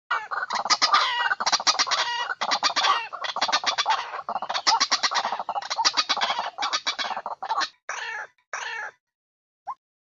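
White-breasted waterhen (ruak-ruak) lure call: a long croaking chorus of rapid rough pulses for about eight seconds, then two shorter croaks. Near the end it falls quiet before the first of a string of short rising notes.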